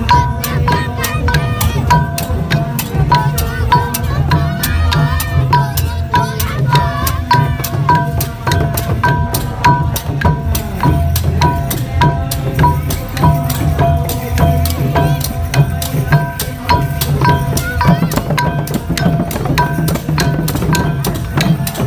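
Chhay-yam processional percussion: long-bodied chhay-yam drums beaten by hand, with wooden clappers clacking and small metal percussion ringing, in a steady quick beat.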